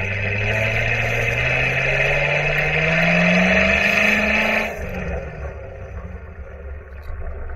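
Supercharged Corvette C7 V8 heard right at its exhaust tips, accelerating with the pitch climbing steadily. About two thirds of the way through the engine lets off abruptly and drops to a quieter cruising note.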